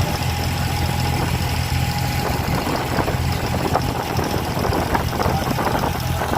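An abra water taxi's diesel engine running steadily with a low drone, with scattered light knocks in the second half.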